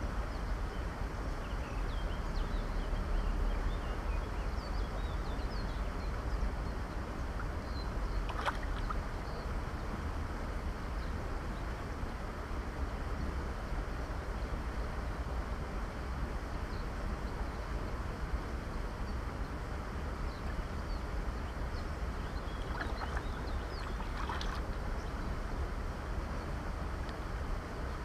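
Steady rush of river water around a wading angler's legs, with low wind rumble on the microphone and faint bird chirps. A few short sharp sounds come about eight seconds in and twice more around twenty-three seconds in.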